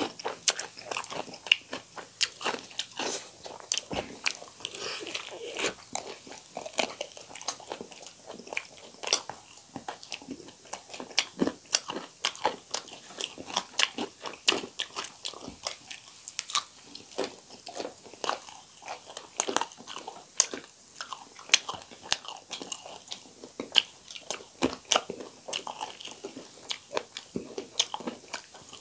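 Close-miked chewing and biting of two people eating fried whole chicken and green chillies by hand, a steady run of irregular sharp crunches and crackles.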